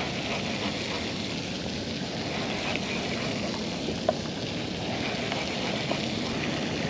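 Steady splashing hiss of a pond fountain, with a single sharp click about four seconds in.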